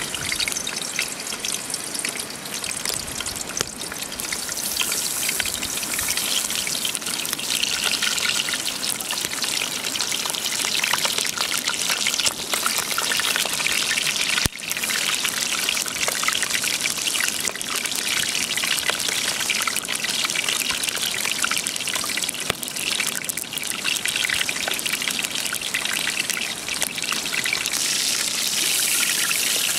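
Raw chicken pieces sizzling in hot oil in a frying pan, starting as the first piece goes in and getting louder over the first few seconds as more are added.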